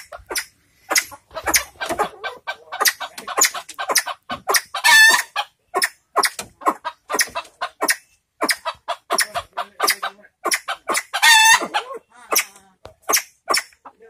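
Sempidan, fireback pheasants, giving a rapid string of short, sharp clucks. Two longer, louder calls come about five seconds in and again about eleven seconds in.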